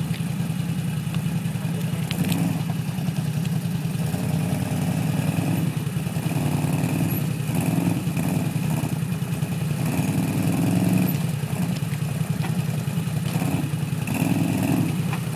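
Can-Am ATV engine running under load as it climbs a steep rocky slope, the throttle opened in repeated short swells about once a second.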